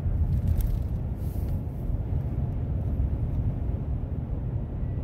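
Steady low road and engine rumble of a car driving at highway speed, heard from inside the cabin.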